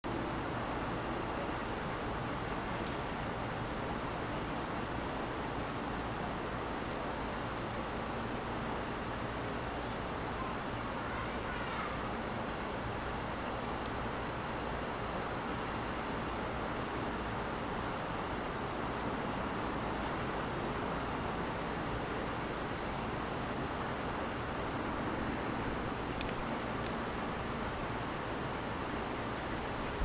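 Cicada singing: one steady, high-pitched buzz that holds without a break, easing a little in loudness over the second half.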